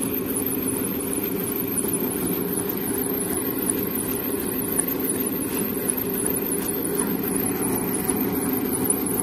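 Tubewell pump running, a steady mechanical drone.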